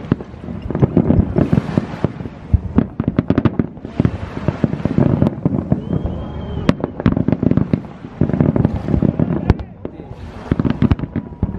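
Aerial fireworks going off in quick succession: a dense run of sharp bangs and pops, with stretches of crackle from glittering bursts coming back several times.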